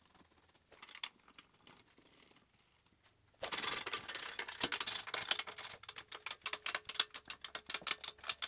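Ratchet wrench clicking rapidly as bolts are tightened on the lower mount of a steel tractor grill guard. The clicking starts about three and a half seconds in and runs on quickly, after a few faint handling rustles.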